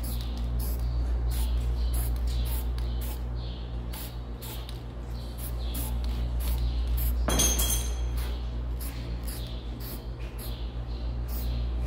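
Aerosol can of high-temperature spray gasket being shaken, its mixing ball rattling about three times a second, with one short spray burst about seven seconds in. A steady low hum underneath.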